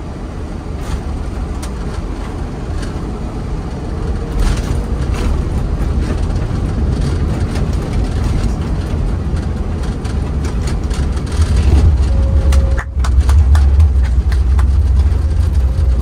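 Airbus A330 cockpit noise through touchdown and landing rollout: a steady low rumble with scattered knocks. It grows louder about four seconds in and again near twelve seconds.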